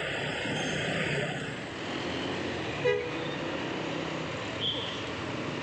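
Steady road traffic and engine noise, with one short horn toot about three seconds in.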